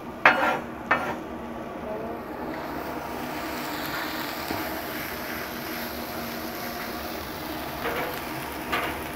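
A metal spatula scrapes and clacks on a steel flat-top griddle in the first second, then sliced bell peppers tipped onto the hot griddle set up a steady sizzle.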